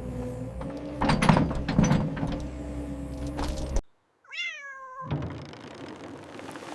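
Excavator engine running with a steady hum and a few heavy thunks as it digs; the sound cuts off abruptly and a cat meows once, a falling cry, with a faint rustle after it.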